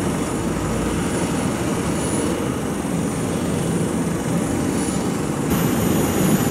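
Airbus A400M's four turboprop engines and eight-bladed propellers running, a loud steady low-pitched sound with thin high whines above it. About five and a half seconds in, the sound shifts and a new steady high whine comes in.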